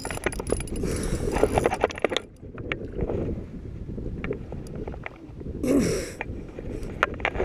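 Water sloshing against the hull of a small fishing boat, with scattered sharp knocks and clicks and a couple of brief hissy swells.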